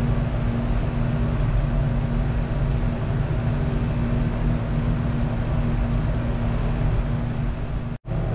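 Vacuum pump on a glass vacuum line running steadily: an even mechanical noise with a low, steady hum. The sound drops out for an instant near the end.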